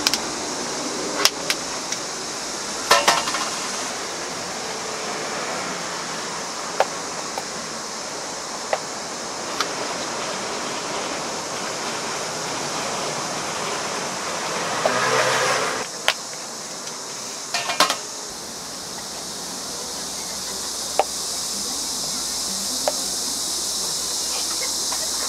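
Knife chopping on a cutting board while fruit is cut: scattered sharp knocks, a few seconds apart, over a steady background hiss. A brief louder rush of noise comes about two-thirds of the way in.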